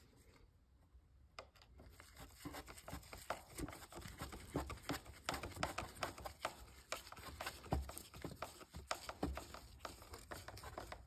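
Screwdriver turning the mounting screw of a car's mass airflow sensor in its plastic intake housing: a faint run of small irregular clicks and scrapes that starts about a second and a half in.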